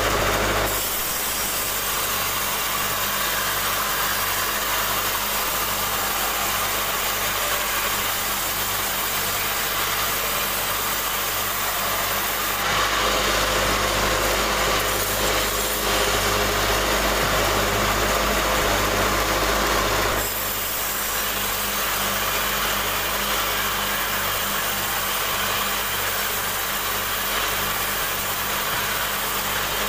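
Sawmill band saw running steadily with its motor humming under the hiss of the blade cutting through a log. The sound changes about a second in and is louder and fuller for about eight seconds in the middle.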